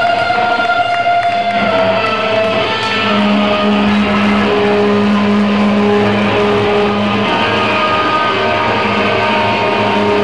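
Loud distorted electric guitar played live through an amplifier, holding long notes that change pitch every second or two.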